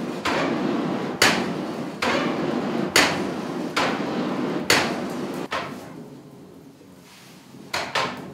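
Japanese box bellows (fuigo) pumped by hand at a forge. It gives a sharp wooden clack at each end of the stroke, a little more than one a second, every other clack louder, over a steady rush of air and fire. The clacks stop about five and a half seconds in and the rush fades, with a few lighter knocks near the end.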